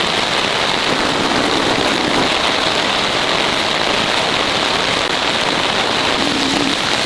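Heavy rain pouring down steadily, a dense, even hiss of a downpour.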